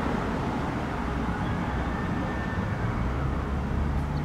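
Road traffic noise: a steady low rumble of car engines and tyres on the street.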